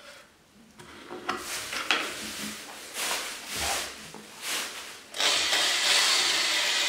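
A few short swishing sounds. Then, about five seconds in, a drill-driven paddle mixer starts and runs steadily, churning black tint into a bucket of white paint to make it grey.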